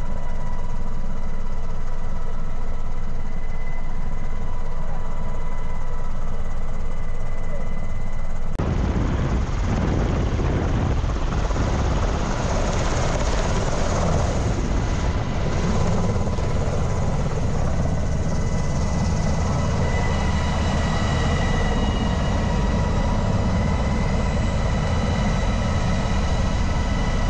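Navy MH-60S Sea Hawk helicopter running: steady turbine and rotor noise with a high whine. About eight seconds in it changes suddenly to a louder, fuller rushing noise.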